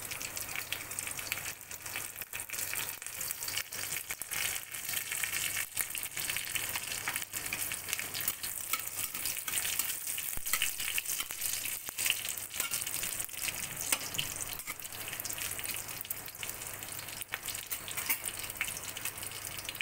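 Spices frying in hot oil in a kadhai: curry leaves, green chillies, mustard seeds and ginger sizzling steadily, with many sharp crackles, as a spatula stirs them.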